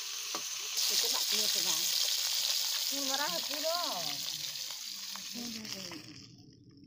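Snakehead fish steaks sizzling in hot oil in a metal wok, with a few clicks of a metal slotted spoon turning them. The sizzle grows louder about a second in and dies away near the end.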